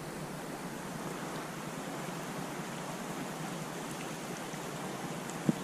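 Steady rushing of flowing creek water, with one short knock near the end.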